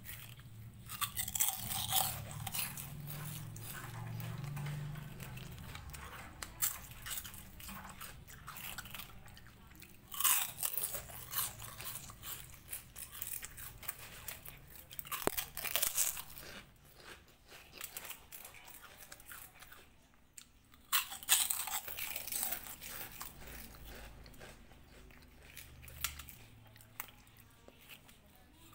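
Kittens crunching and chewing pieces of Kurkure, a crunchy corn snack, in several bouts of crisp crunches with quieter chewing between.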